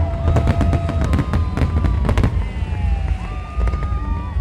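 New Year fireworks going off in quick bangs and crackles over a steady low rumble. Several held tones, sliding down at their ends, sound over the bursts.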